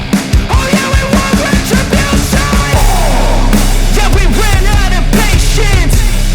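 Background rock music with drums and a singing voice; a heavier, steady bass and drum beat comes in about three seconds in.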